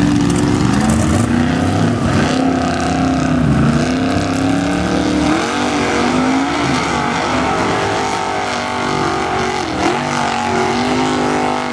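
Formula Offroad buggy's engine revving hard under full load as it climbs a steep dirt slope, the pitch rising and falling again and again, with brief dips about five and ten seconds in.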